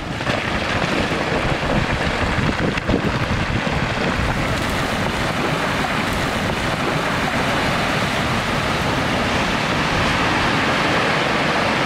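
Rockfall off a mountain cliff: rock breaking away and tumbling down the face, a continuous rushing rumble that builds over the first couple of seconds and then holds steady.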